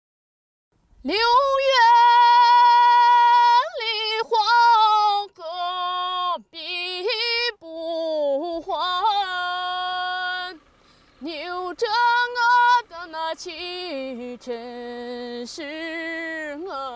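A woman singing solo without accompaniment, starting about a second in: a slow melody of long held notes that slide and bend between pitches.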